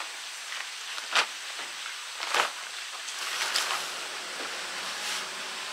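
Decathlon MH100 dome tent being pitched: two sharp knocks of the tent poles about a second apart, then the nylon fabric rustling as it is handled.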